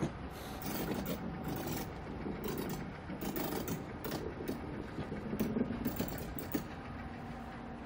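Hyundai Rotem hydrogen fuel-cell electric tram rolling slowly on steel rails, its wheels scraping and clicking irregularly over the old siding track. The clicks are busiest as it draws close, from about three to six and a half seconds in.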